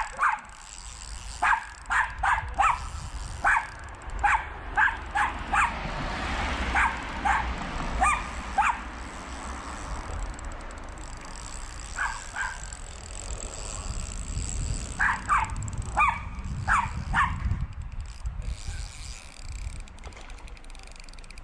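A dog barking in quick runs of short, sharp barks, with pauses of a few seconds between the runs.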